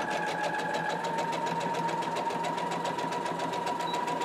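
Electric sewing machine stitching a seam at a steady speed: a steady motor whine with the needle's rapid, even ticking.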